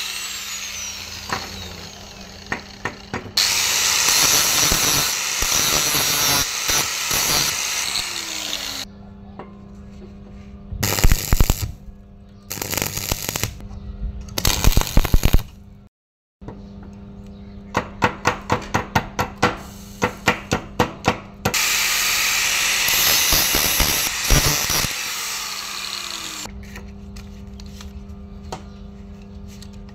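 Workshop metalworking on a homemade welding electrode holder: two long stretches of steady hissing noise and clusters of sharp strikes, the later ones an even run of about two or three a second, over a steady low hum.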